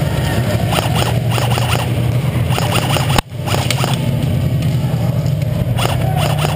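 Airsoft guns firing in short rattling bursts elsewhere in the arena, over a steady low hum. The sound drops out for an instant just over three seconds in.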